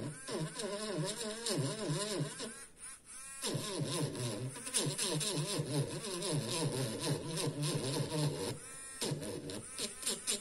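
Handheld electric engraving pen buzzing against the steel of a machete blade as it engraves lettering, its pitch wavering as the pressure on the tip changes. It stops twice, about three seconds in and again about nine seconds in, and each time starts back up with a short rising whine.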